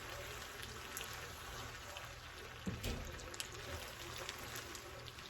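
Spaghetti in tomato sauce bubbling and sizzling in a pan, a steady hiss with small pops, and a single knock about three seconds in.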